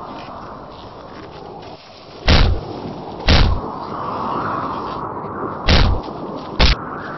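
Four loud, sharp bangs: two about a second apart, then two more a couple of seconds later, over a steady background rush.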